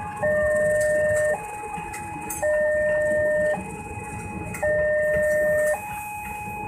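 Railway level-crossing warning alarm sounding its two-note electronic signal: a lower and a higher tone alternate about once a second, the lower note louder, about six notes in all. It warns that a train is crossing. Under it runs the low rumble of passenger coaches rolling over the crossing.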